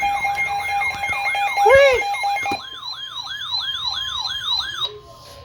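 Electronic siren on a rapid yelp, its pitch rising and falling about three times a second, with a steady tone sounding alongside it for the first half and one louder swoop near the two-second mark. The siren cuts off abruptly near the end.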